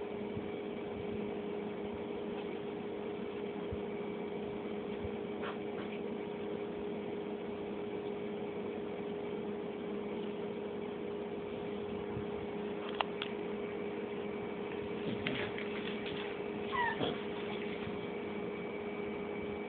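A cat meows once near the end, a short call falling in pitch, over a steady hum. A single sharp click sounds a little after the middle.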